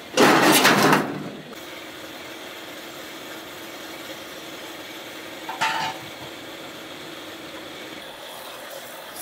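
A loud clatter lasting about a second at the start, then a steady mechanical hum, with a second, shorter clatter a little past halfway.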